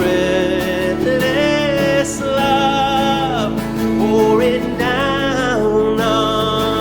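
Live worship band playing a country-tinged worship song: guitar accompaniment under a melodic lead line that slides between held notes.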